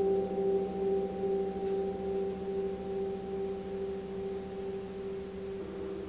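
A 36-inch gong ringing on with no new strike: a low hum of several steady tones, the strongest one throbbing slowly, fading gradually.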